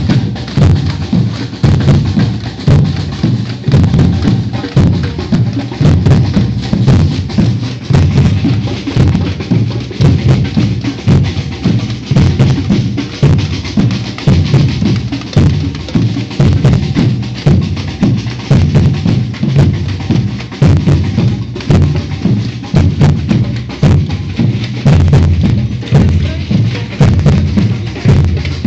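Batucada percussion band playing: deep bass drums and snare drums beating a steady, repeating rhythm.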